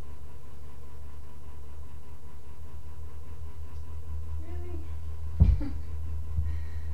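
A kitten gives a single faint, short mew about four and a half seconds in, over a steady low hum. A sharp thump follows about a second later, with a couple of softer knocks after it.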